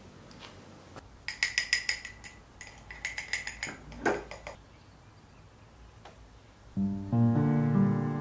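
Small metal mesh sieve tapped in two quick runs of light, ringing taps to sift cocoa powder. A brief falling squeal comes about four seconds in, and guitar music starts near the end.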